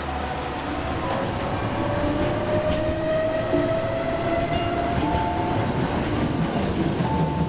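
Running noise inside a moving city transit vehicle: a steady low rumble, with a whine that rises slowly in pitch over a few seconds as the vehicle speeds up.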